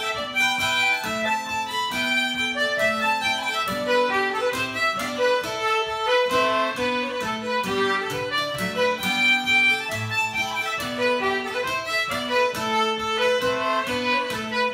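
Irish traditional polka played on fiddle and concertina in unison, backed by a regularly strummed acoustic guitar.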